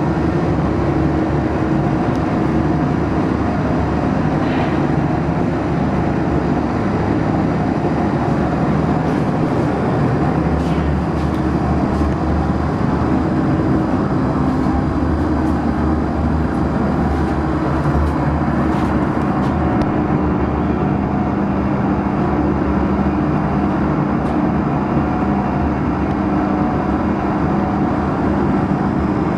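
Loud, steady machine drone with a low hum made of several held tones, running without change, with a few faint clicks in the middle.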